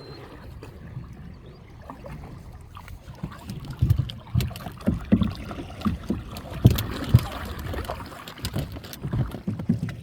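Water splashing and sloshing around a small boat, with irregular low knocks and thumps from about four seconds in.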